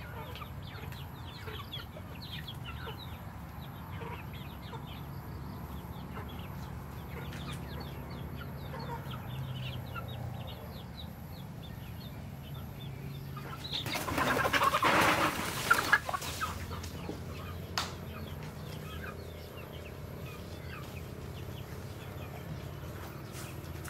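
Chickens clucking quietly while foraging, then a loud flurry of wing-flapping and scuffling a little past halfway as they scatter, followed by a single sharp click.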